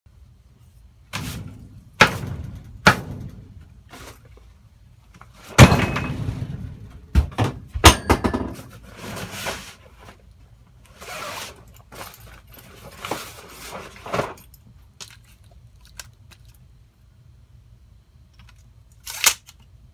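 Handling noise: a string of knocks and clunks with spells of rustling as a Porter-Cable fabric tool bag is set on a wooden bench and opened and an air stapler is lifted out of it. The loudest knocks come about a third of the way in.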